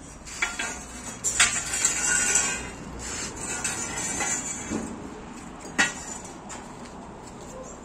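Bent steel-tube chair frames clanking and rattling against each other and on a concrete floor as they are handled and set down, with a cluster of knocks in the first three seconds and one sharp clank at about six seconds.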